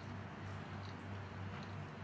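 Faint chewing and small mouth clicks of someone eating, over a low steady hum that pulses about twice a second.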